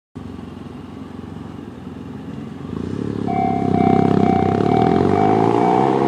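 A motorcycle accelerating, its engine rising in pitch and growing louder. About three seconds in, the level crossing's electronic warning bell (the JR standard sound) starts ringing in an even, rapidly repeating tone.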